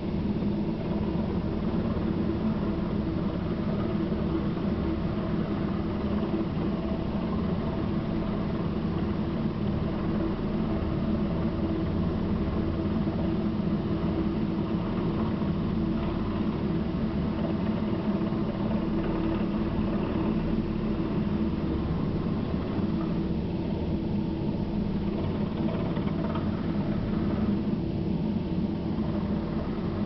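Helicopter hovering low overhead, its engine and rotor running steadily with no change in level.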